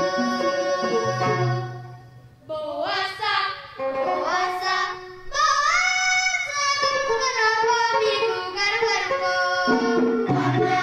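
Traditional folk music. A held melody fades out about two seconds in, then a singing voice takes over with sliding, ornamented phrases. Drumming comes in near the end.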